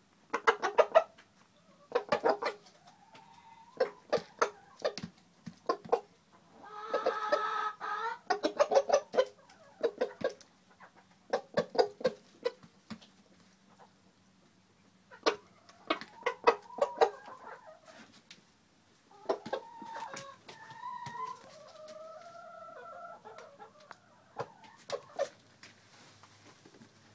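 Rooster clucking in quick clusters of short, sharp clucks, with a longer drawn-out call about seven seconds in and wavering, gliding calls around twenty seconds in.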